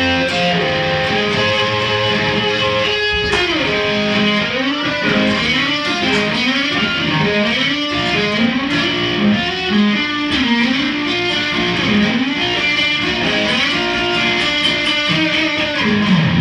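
Electric guitar played solo, a melodic line with many notes bent or slid up and down in pitch.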